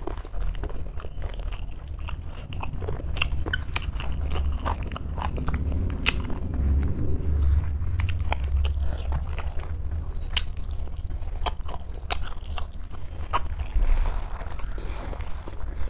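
A person chewing and biting a mouthful of rice and curry close to the microphone: wet chewing with many short, crisp clicks and crunches, over a low rumble.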